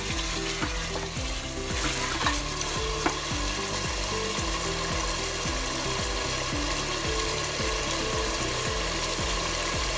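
Mutton, masala and tomatoes sizzling as they fry on high flame in an open pressure cooker, with a few scrapes of the spatula near the start. Soft background music with a steady, repeating bass line plays underneath.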